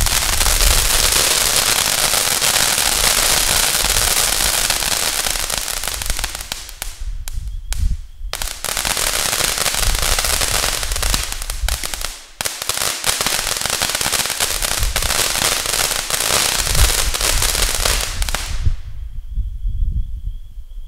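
Consumer fountain firework ('Frog') burning: a loud, dense hiss full of rapid crackling, with two brief dips in the middle, then stopping abruptly near the end as it burns out.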